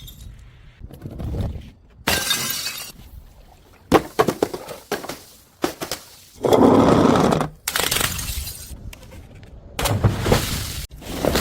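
Glass bottles smashing one after another, about six or seven separate crashes, each with a bright tinkle of shards. The loudest is a longer, heavier crash of about a second near the middle.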